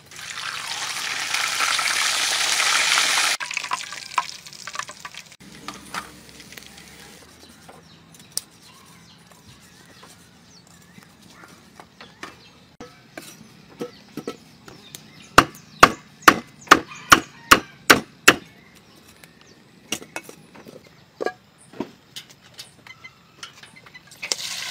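Slabs of pork belly sizzling loudly as they go into hot oil for about three seconds. Then a cleaver chops the crispy fried pork on a wooden chopping block: scattered knocks, and a run of about ten hard strikes, some three a second, past the middle. Water starts pouring into a pot at the very end.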